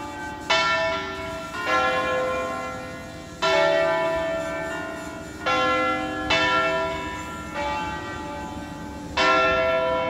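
Church tower bells ringing: several bells of different pitch strike in an uneven sequence, about seven strokes, each ringing on and overlapping the next.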